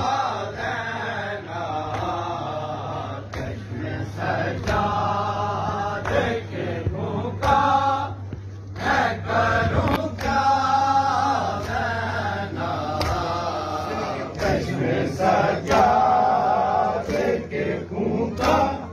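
Men chanting a mourning lament (noha) together, with rhythmic slaps of hands striking bare chests in matam.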